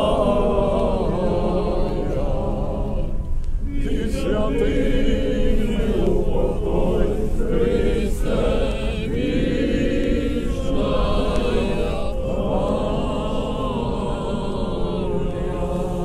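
A crowd singing together in slow, drawn-out phrases of about four seconds each, with short breaks between them.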